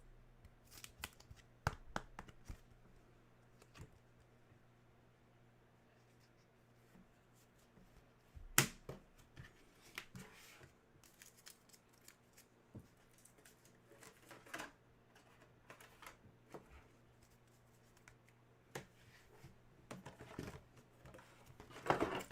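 Trading cards being handled and sorted by hand: faint slides, taps and rustling, with a sharper click about eight and a half seconds in, over a faint steady low hum.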